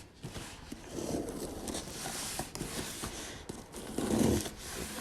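Shipping packaging being opened by hand: irregular rustling, scraping and tearing, a little louder about four seconds in.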